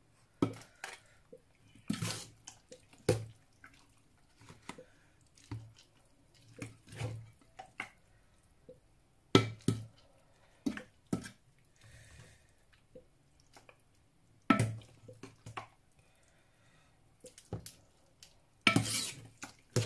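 Metal ladle knocking and scraping against a pot and plastic food containers while soup is ladled out, in irregular clinks and knocks; the loudest come about halfway through and near the end.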